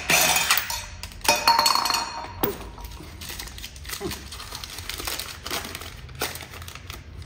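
Metal tools and fittings clanking and clinking on a concrete floor, with two loud knocks, the second ringing briefly, followed by quieter clicks and paper rustling.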